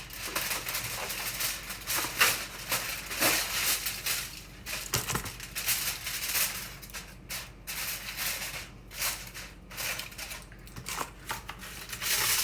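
Irregular crinkling, rustling and clicking as the biryani pot is being covered for dum steaming.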